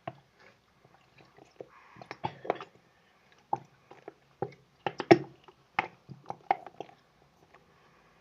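Irregular clicks and knocks of plastic containers, a bowl and a spoon being handled on a table, the loudest about five seconds in.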